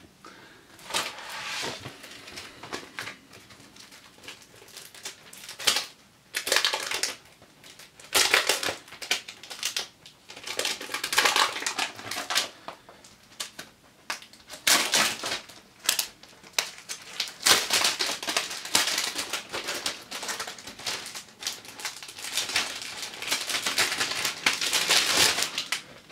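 Plastic packaging crinkling and rustling in irregular bursts as it is handled and opened, busier in the second half.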